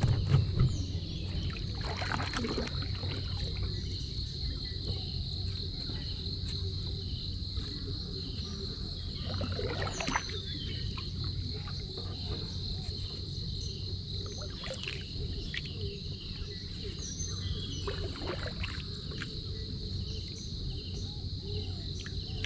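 Insects chirping in a steady, continuous high-pitched chorus, with a few scattered rustles and knocks of handling.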